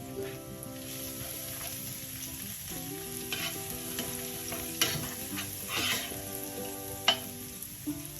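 Food sizzling in a frying pan while a utensil stirs it, with several sharp clinks and scrapes of the utensil against the pan.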